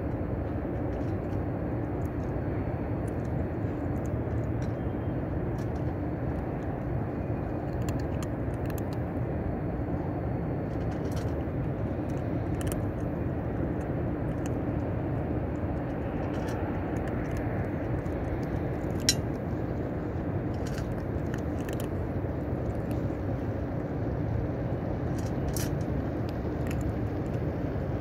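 Cats chewing dried fish from a stainless steel bowl close to the microphone: scattered small crunching clicks, with one sharper click about 19 seconds in. Underneath, a steady low rumble of city traffic.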